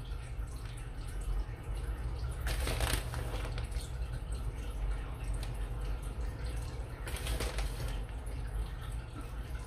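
Grated cheese being spread by hand over a dish, with two short rustles a few seconds apart over a steady low hum.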